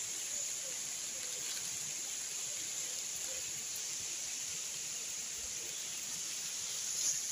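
Steady high-pitched buzzing of an insect chorus, with a few faint short calls.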